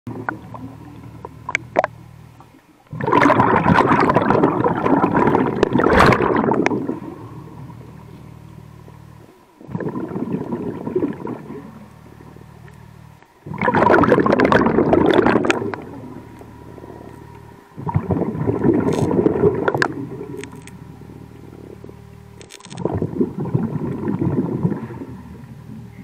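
Scuba-style diver breathing through a hookah-system regulator underwater: five loud rushes of exhaled bubbles, one about every four to five seconds, with a low steady hum between breaths.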